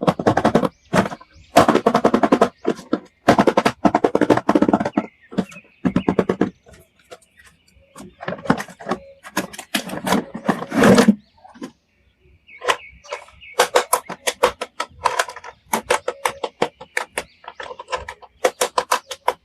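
Plastic toy figures and packaging being handled: bursts of rapid clicking and rattling separated by short pauses.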